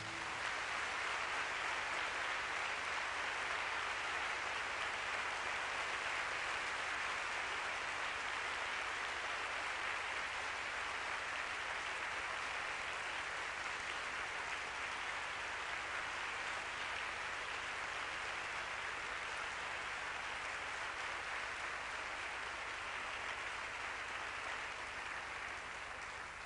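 Theatre audience applauding steadily, dying away near the end.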